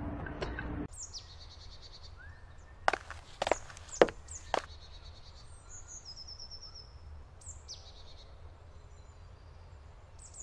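Quiet woodland ambience with small birds chirping and trilling on and off. Four sharp knocks come in quick succession about three to four and a half seconds in.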